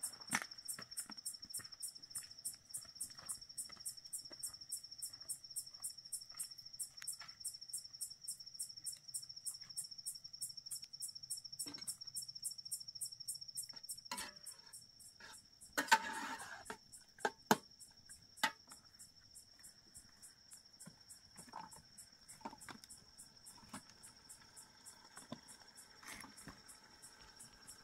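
Crickets chirping: a steady high trill with an even pulse of about four chirps a second, fading somewhat after the midpoint. Scattered light clicks and knocks, and a short louder noisy burst about sixteen seconds in.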